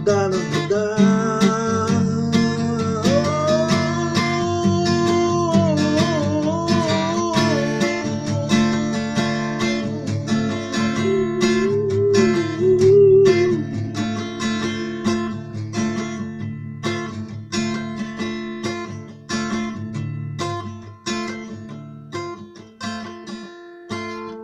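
Acoustic guitar strummed in a song's closing passage, with a man's voice holding long, wavering notes without clear words over roughly the first half; the strumming then carries on alone and fades out near the end.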